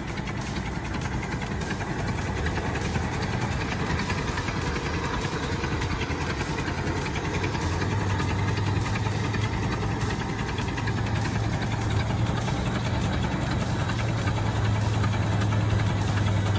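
An engine running steadily at idle, with a low drone that comes up strongly about halfway through.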